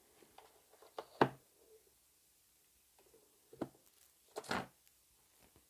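Hands routing a battery charging cable through a motorcycle's bodywork: a few short knocks and clicks with a brief rustle, the loudest about a second in and another near the end.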